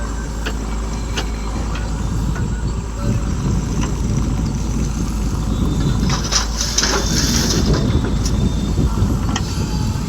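Tractor engine running steadily, with a brief hissing burst about six to seven seconds in.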